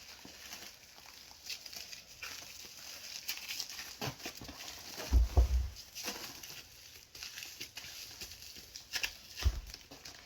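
Plastic cling wrap crinkling and rustling as a ball of pastry dough is wrapped, with scattered light clicks and two soft low thumps, one about halfway through and one near the end.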